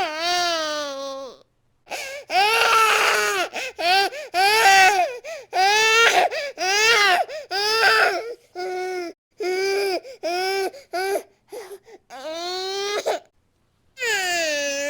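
Infant crying in a series of angry wails broken by short breaths, with a longer wail starting near the end.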